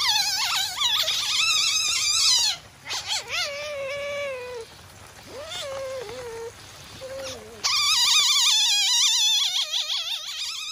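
Masked palm civet giving high-pitched, rapidly wavering cries, loud for the first couple of seconds, softer and lower in the middle, then loud again from about three-quarters of the way in. It is the call of an irritated, agitated civet, a sign that it should be approached with caution.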